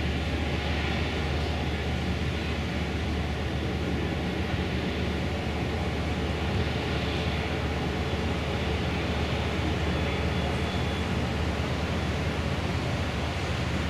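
Steady low rumble with an even rushing noise from aboard a large cruise ship under way, its propulsion churning the water as it leaves the dock.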